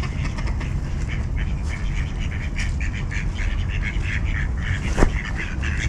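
A group of mallard ducks quacking, short calls in quick succession, over a steady low rumble. A single sharp click about five seconds in.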